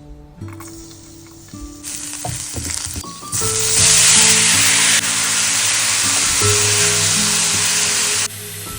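Food sizzling in a hot frying pan, faint at first, then loud from about three seconds in until it drops away suddenly near the end, over background music.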